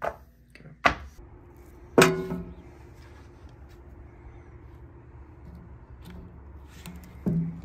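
Handling knocks and clicks as a clamp meter and its magnetic hanger are set against a steel electrical enclosure. The loudest is a metallic clank about two seconds in that rings on faintly, and another knock comes near the end.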